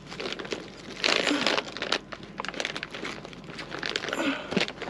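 Plastic grocery packaging crinkling and rustling as hands rummage through a shopping bag, loudest about a second in.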